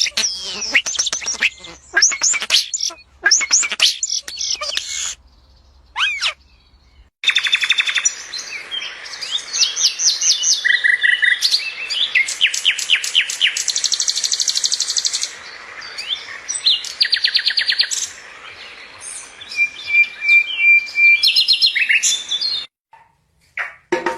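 Songbirds singing and chirping: fast repeated trills, sweeping high notes and short chirps from several birds, with the recording cutting abruptly to a new stretch of song a few times.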